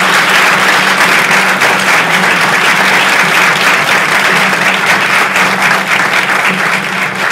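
Audience applauding: many people clapping together in a dense, steady stream of claps.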